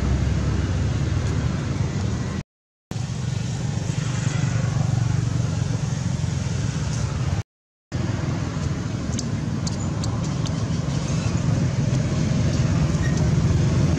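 Steady low rumble, cut off abruptly to silence twice for a moment, about two and a half and seven and a half seconds in, with a few faint clicks near the end.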